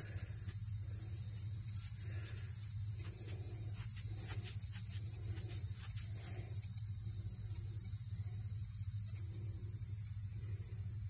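A steady high-pitched chorus of evening insects, with soft rubbing and faint clicks about twice a second as fingers rub dirt off a freshly dug copper cent held close to the microphone.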